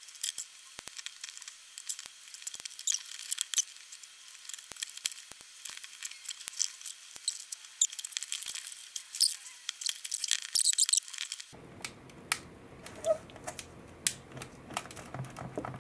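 Irregular small cracks, clicks and scrapes as a cured carbon-fibre part is prised and popped free of its mould with a screwdriver, with a denser run of crackling about two-thirds of the way through.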